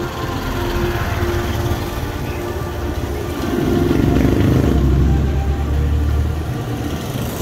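Street traffic of motorcycles and motorcycle-sidecar tricycles, engines running close by. A deep engine rumble swells to its loudest about four to five seconds in, then eases off.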